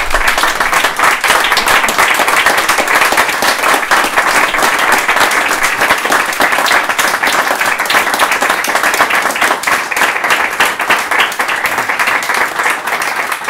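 A small audience applauding, dense and steady hand clapping after a recited poem.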